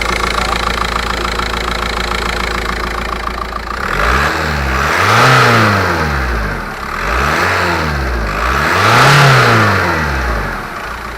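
Volkswagen 1.9 TDI four-cylinder turbodiesel idling, then revved three times, each rev rising and falling back, the last about the highest, before it settles to idle again near the end.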